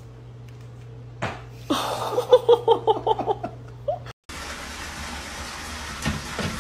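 A knock, then a quick run of short pitched vocal bursts, about five a second. After a sudden break, a steady rush of water at a toilet, with a couple of soft knocks near the end.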